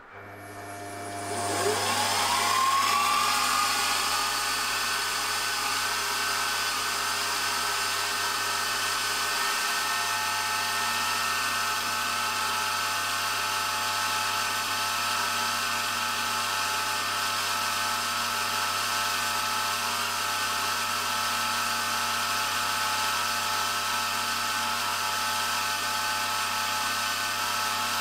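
Machine drill spindle with a small micro chuck spinning up over about two seconds, its whine rising in pitch, then running steadily at high speed while a fine twist drill is fed into the oil-ring groove of a cast iron piston to drill oil holes.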